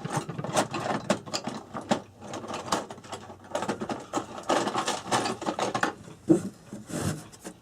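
Screwdriver turning a small screw in the clock's sheet-metal housing, with quick irregular clicks and scrapes of metal on metal.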